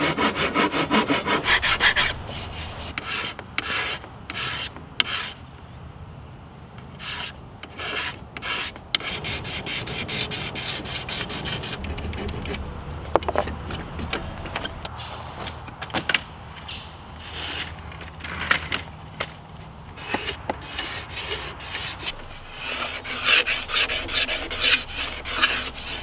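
Flexible flush-cut hand saw trimming a protruding wooden dowel flush with a hardwood chair rail. Teeth rasp on wood in quick back-and-forth strokes at first, then in slower, spaced strokes, and quick again near the end.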